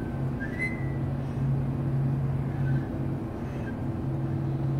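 A steady low mechanical hum that swells and eases, with a brief faint high squeak-like tone about half a second in.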